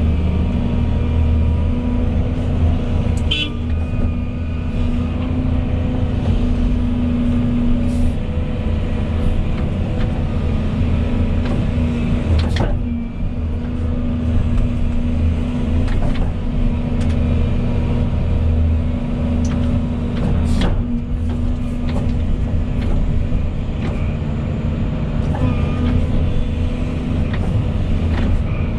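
Volvo EC220E excavator's diesel engine running steadily under work, with a constant hydraulic whine over it. A few sharp knocks, about four, come through.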